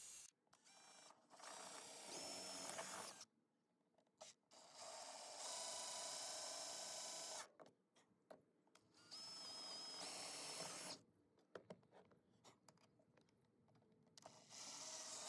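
Power drill run in three bursts of a few seconds each, with a steady whine, drilling mounting holes for stainless steel thru-hull fittings. Short clicks and knocks fall between the bursts.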